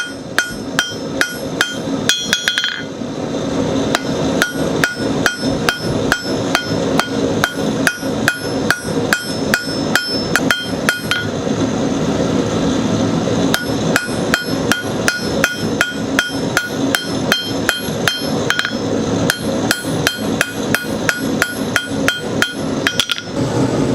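Blacksmith's hammer striking a hot twisted 1/2-inch steel bar on the anvil to forge it back square, about three ringing blows a second, thinning briefly around the middle. A steady rush runs underneath.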